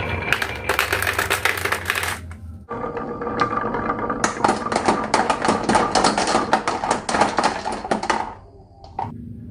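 Marbles clattering down a wooden toy marble run: a dense, rapid clicking. It comes in two stretches, the second and longer one starting a little after the middle and stopping fairly suddenly near the end.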